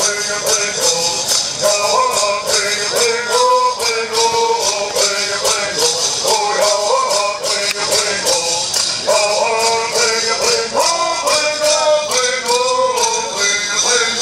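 Bird singers singing a Southern California bird song, kept in time by gourd rattles shaken at a steady beat of about three to four shakes a second.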